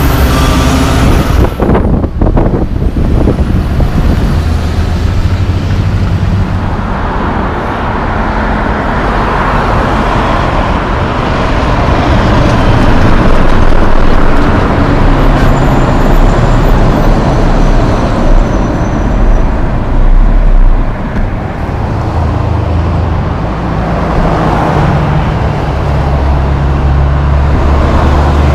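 Heavy diesel trucks, including loaded log trucks, driving past, their engines and tyres swelling and fading as each one goes by, over steady road traffic.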